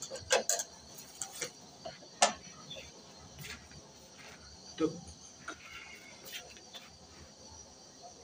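Scattered light clicks and taps as a glass jar of cooking oil is handled, with a duller knock about five seconds in. A faint, steady, high chirring runs underneath.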